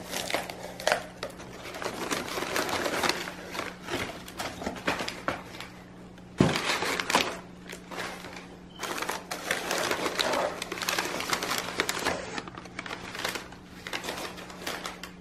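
Crumpled newspaper packing rustling and crackling as it is pulled by hand out of a cardboard box, with a sharp crunch about six seconds in. Shredded-paper packing rustles under the hand near the end.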